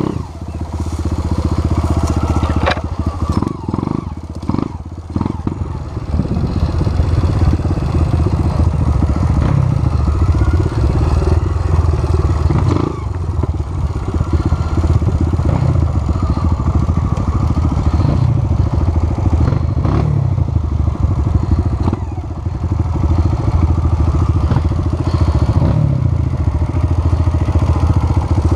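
Off-road trail motorcycle engine running continuously while riding, revving up and easing off every few seconds, with a few knocks and clatter about two to five seconds in.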